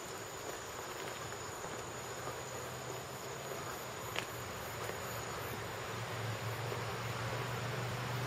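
A steady chorus of summer insects calling, with a thin high-pitched note held through the first five seconds or so. A low hum grows in from about six seconds in.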